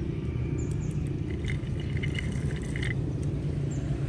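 A low, steady rumble.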